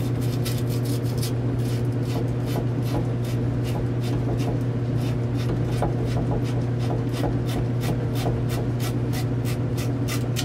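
Steel-bristle copper tube cleaning brush twisted back and forth on half-inch copper tubing, a scratchy scrubbing of about three strokes a second, cleaning the copper bright. A steady low hum runs underneath.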